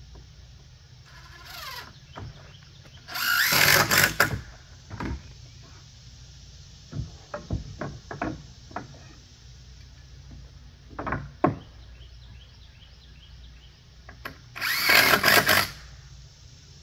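Cordless drill driving screws into a wooden deck railing: two loud bursts of about a second each, with a shorter, quieter run of the drill near the start. Between the bursts come a few sharp knocks and taps of wood.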